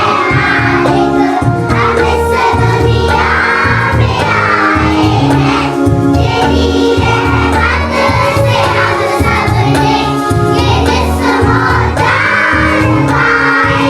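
A group of children singing a song together over musical accompaniment with a steady low beat.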